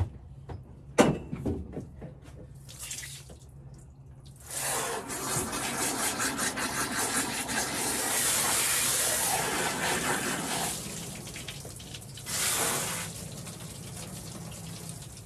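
Water from a garden hose spraying onto and into a freshly eviscerated chicken carcass on a stainless steel table: a steady rush lasting about six seconds, then a short second burst. A sharp knock and some light clatter come first, about a second in.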